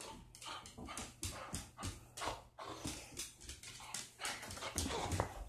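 A dog moving about with his ball on a hardwood floor: a run of short, irregular noisy sounds, a few a second, with some low thumps.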